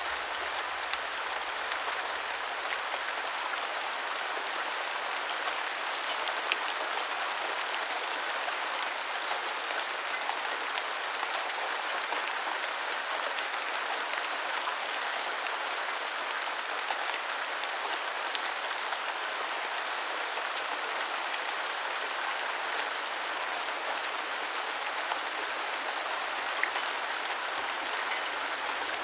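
Steady rain falling, a dense even hiss with scattered sharper drop impacts.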